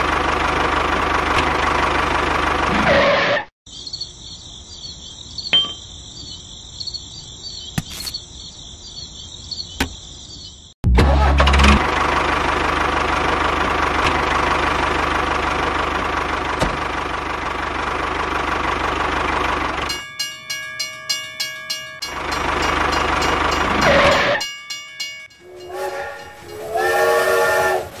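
Engine sound for a toy tractor: a steady noisy running sound that sets in with a low burst, heard in two long stretches with a quieter high whine between them. Near the end come a rhythmic clatter and then a train whistle.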